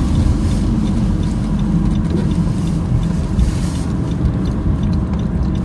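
Car cabin noise while driving: a steady low rumble of engine and tyres on the road, heard from inside the car.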